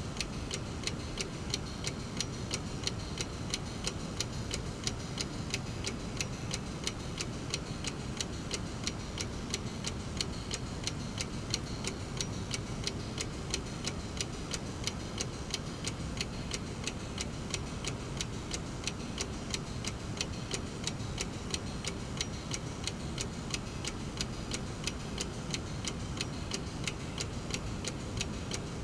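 Brass mechanical clock movement ticking, its escapement making steady, evenly spaced ticks at roughly two to three a second.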